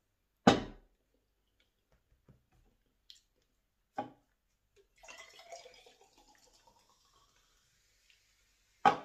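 A plastic bottle set down on a table with a thump, then a knock, then a drink poured from a can into a glass, the pouring tone rising as the glass fills and fading into a soft hiss. A second loud thump comes near the end.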